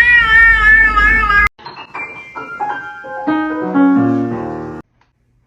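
A cat's long, loud meow that cuts off abruptly about a second and a half in, followed by a short descending run of piano notes that stops suddenly near the end.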